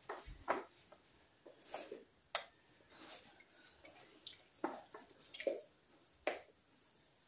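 Scissors snipping the nap of a paint roller cover: a handful of faint, irregular snips and clicks of the blades.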